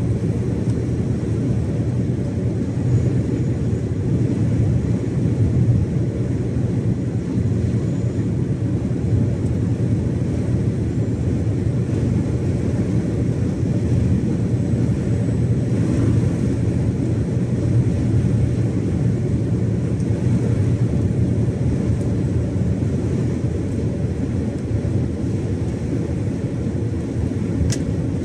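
Iveco Stralis 570XP lorry on the motorway, its Cursor 13 inline-six diesel and tyre noise making a steady low drone at constant cruising speed.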